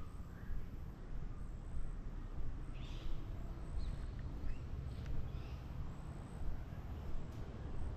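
Outdoor ambience: a steady low rumble with a few short bird chirps and a couple of faint clicks.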